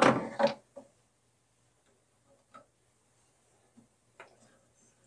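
A few faint, spaced-out clicks and taps of hands handling the wheels of a Craftsman 10-inch three-wheel bandsaw as the small clamps holding the blade on are taken off.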